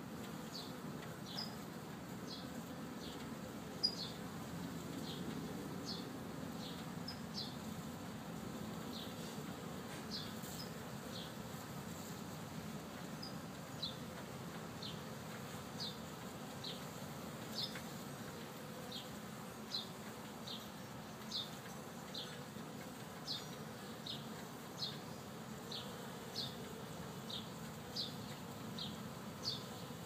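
Swarm of honey bees buzzing steadily around a hive. Short, high, falling bird chirps repeat about once a second over the buzz.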